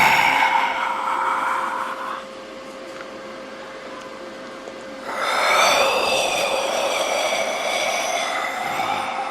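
Synthesized horror sound effects. A layered tone of several steady pitches fades out about two seconds in, leaving a faint steady hum. About five seconds in, a new tone of wavering, drifting pitches swells in.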